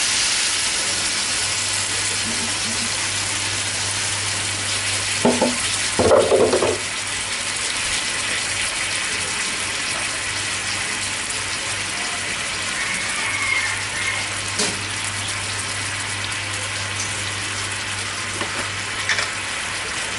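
Chicken pieces sizzling in a frying pan with fish sauce just added, a steady hiss. A couple of brief clatters come about five and six seconds in.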